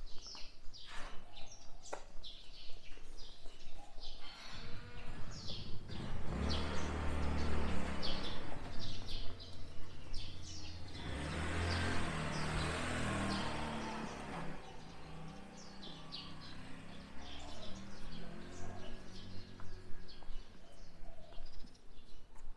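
Small birds chirping again and again in short, high notes, while a low rumble of passing traffic swells twice in the middle and fades away.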